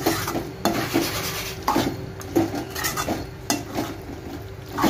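Slotted metal spatula scraping and knocking around an aluminium kadai as masala-coated mutton pieces are stirred, in a steady rhythm of about two strokes a second.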